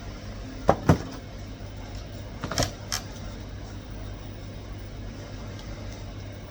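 A few sharp clicks or knocks over a steady low hum: two close together about a second in, then two or three more a couple of seconds later.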